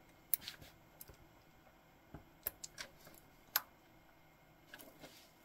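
Faint metallic clicks and taps of a polished stainless steel watch bracelet and clasp being handled on the wrist: a handful of separate sharp clicks, the loudest about three and a half seconds in.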